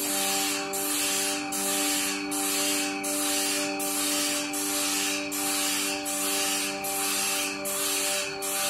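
Wide sawmill band saw blade being sharpened tooth by tooth on a grinding wheel: a grinding hiss of abrasive wheel on steel that pulses evenly, about every 0.6 seconds, as each tooth passes the wheel, over a steady hum.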